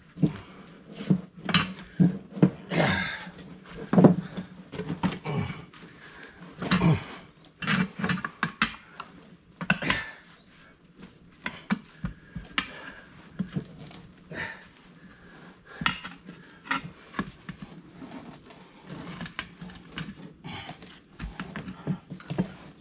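Steel tire irons knocking and scraping against a steel tractor wheel rim and the center post of a manual tire-mounting station, in irregular clanks, as a stubborn tire bead is levered onto the rim.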